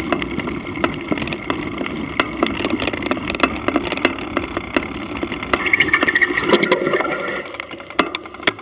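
Mountain bike rattling over rough grass, with wind on the camera microphone and irregular clicks and knocks from the bumps. A louder wavering whine lasts about a second and a half, about six seconds in, and the noise drops near the end as the bike slows.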